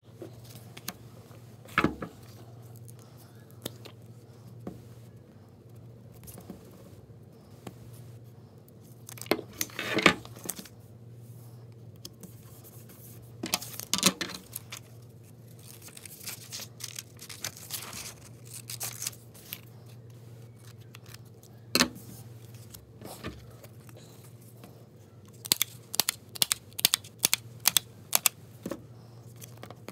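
Paper and card being handled, slid and rustled on a wooden tabletop, with a few louder swishes. Near the end a hand-held hole punch clicks about a dozen times in quick succession as it punches holes in metallic foil paper. A steady low hum runs underneath.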